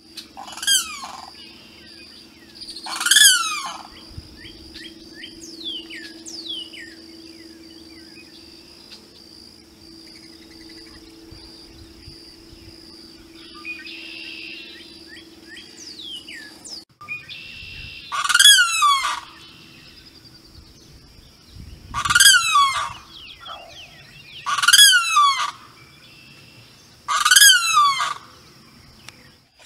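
Limpkin calling loudly, about six calls in all, each dropping in pitch: two in the first few seconds, then four spaced a few seconds apart in the second half. Fainter falling bird calls and a steady high-pitched drone sound between them.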